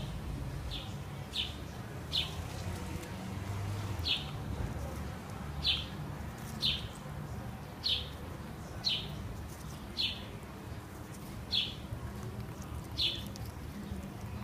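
African grey parrot giving short, high chirps, about a dozen at roughly one a second, each dropping slightly in pitch, over a low steady rumble.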